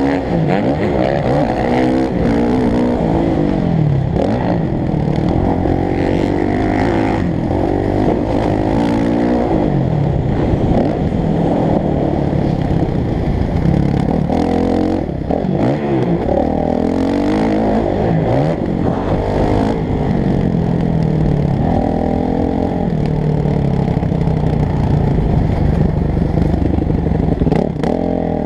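Motocross bike engine recorded up close on the bike, revving up and dropping off over and over as the rider accelerates and shifts through the gears, the pitch climbing then falling every few seconds.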